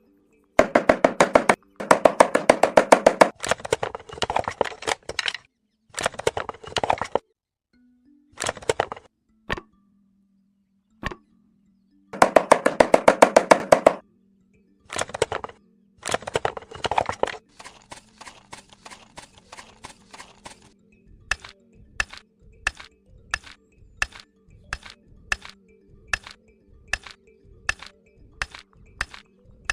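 Background music with a percussive beat: bursts of rapid clicking in the first half with short silences between them, then a regular click about once a second over a steady low tone.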